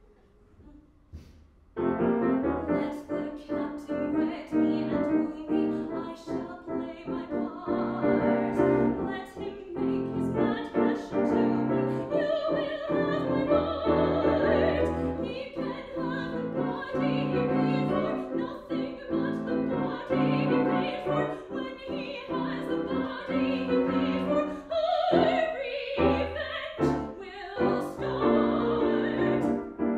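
A grand piano strikes up suddenly about two seconds in after near silence, and a woman sings with vibrato over it in a classical style.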